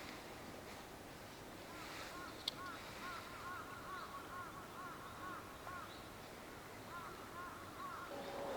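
Faint bird calls: a long run of short rising-and-falling calls, two or three a second, that stops about a second before the end. A single sharp click comes about two and a half seconds in.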